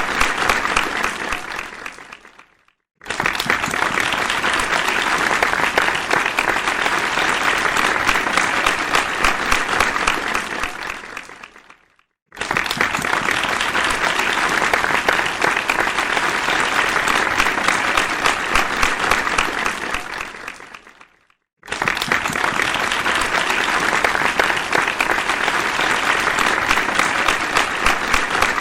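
Audience applause, many people clapping, in repeated rounds: one dies away about two seconds in, then rounds of about nine seconds start suddenly near 3, 12 and 22 seconds in, each fading out into a brief silence, the last fading near the end.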